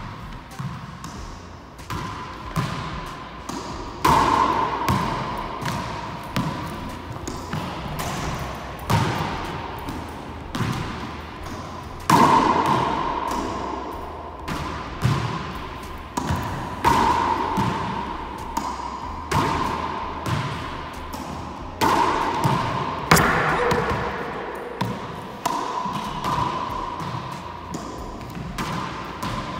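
Racquetball being played in an enclosed court: repeated sharp cracks of the ball off the racquet, walls and floor, each followed by an echoing ring, with harder hits every few seconds.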